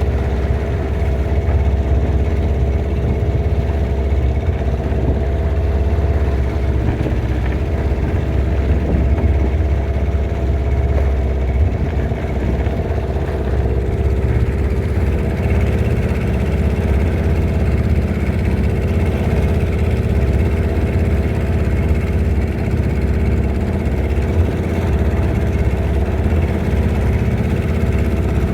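Motorboat engine running steadily at a constant low speed, with an even drone.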